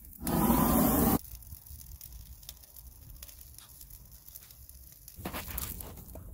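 Wood and brush fire burning in a steel flame-cap biochar kiln, crackling with scattered sharp pops. It opens with about a second of loud rushing noise that cuts off suddenly, and the crackling grows a little fuller near the end.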